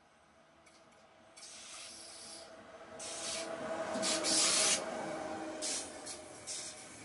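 An electric freight train passing close by: wheels rolling on the rails grow louder from about a second and a half in, with a faint steady whine underneath. The sound is loudest as the locomotive goes past about four seconds in, and then the passing wagons keep up a steady rolling rush.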